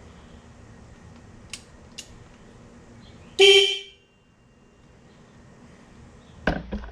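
CFMoto ZForce 800EX side-by-side's electric horn sounding once, a short honk of about half a second, a few seconds in. Two light clicks come just before it and a few more near the end.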